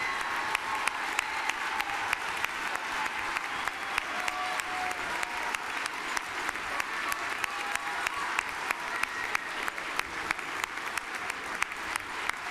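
Large crowd applauding steadily, with many individual sharp claps standing out.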